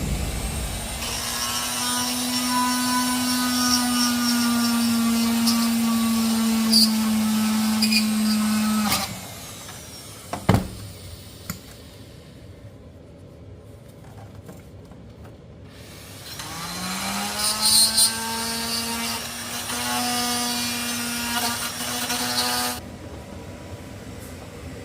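Handheld rotary tool grinding a display mounting plate into shape: a steady motor whine with grinding noise for about nine seconds, sinking slightly in pitch under load before it stops. After a pause it spins up again with a rising whine and grinds for about six more seconds.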